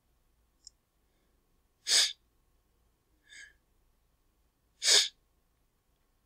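A person's short, sharp breaths close to the microphone: two strong puffs of breath about three seconds apart, with a fainter one between them.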